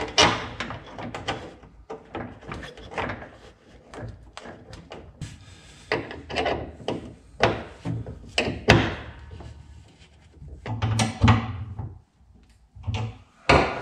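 Hand-work noise on a stripped car body: a thin line pushed and rubbed along foil heat shielding and fittings handled at the brake bias valve on the transmission tunnel, giving irregular knocks, clunks and rubbing.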